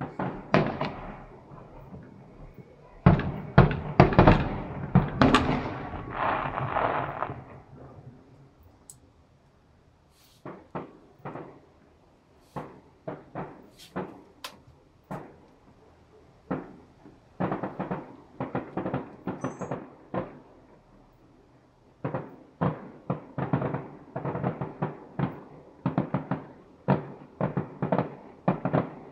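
Fireworks exploding in rapid volleys of sharp bangs: a dense barrage a few seconds in, then scattered single bangs, then two more fast runs of bangs toward the end.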